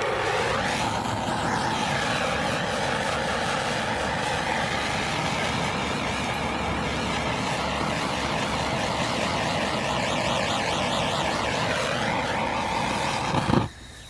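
Handheld propane torch flame burning with a steady hiss, heating a PVC pipe fitting to soften it. It cuts off shortly before the end.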